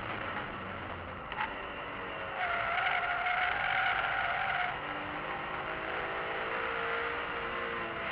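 BMW E46 M3's straight-six engine heard from inside the cabin at speed, its pitch rising and falling with the revs. A short click comes a little over a second in, and for about two seconds near the middle the tyres squeal through a bend.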